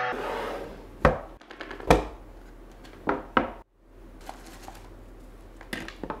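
Handling noise from an unboxing: the plastic intercom unit and its cardboard box are picked up and set down on a wooden tabletop. There are four sharp knocks in the first three and a half seconds, then a few softer taps near the end.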